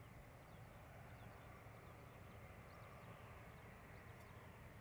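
Near silence outdoors: a faint steady low rumble, with scattered short high chirps of small birds.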